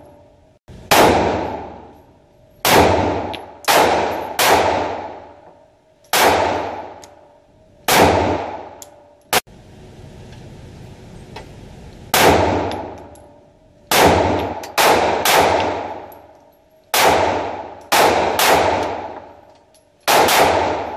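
Kahr CW380 .380 ACP pocket pistol fired repeatedly, about fifteen shots in uneven strings with a pause of a few seconds midway. Each shot rings out in a long echo that fades over a second or more in the enclosed range.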